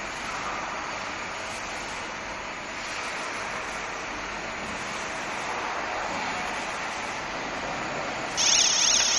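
Industrial machinery running steadily, with a loud high-pitched hiss starting near the end.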